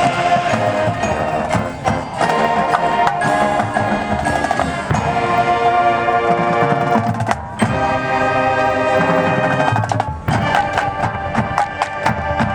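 High school marching band playing: sustained brass and wind chords over percussion hits, with short breaks between phrases.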